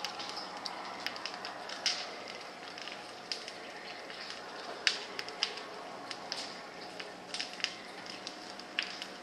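Sharp clicks and ticks at irregular spacing, roughly one a second, over a steady high hiss.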